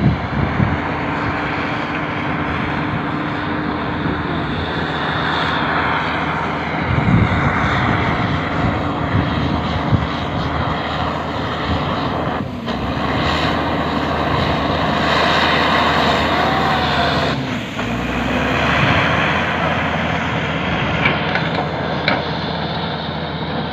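Crawler bulldozer's diesel engine running steadily under load as it pushes snow with its blade, dipping briefly twice.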